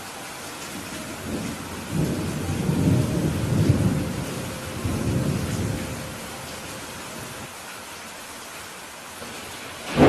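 Steady rain with a roll of thunder rumbling for several seconds, swelling in from about a second and a half in and dying away by about six seconds; another loud clap begins right at the end.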